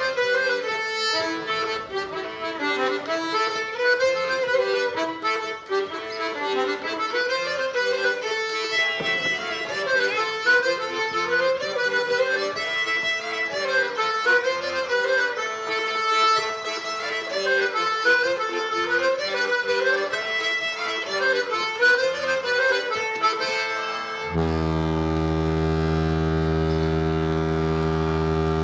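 Accordion playing a Breton dance tune in short repeating phrases, ending a little after twenty seconds in on one long held chord.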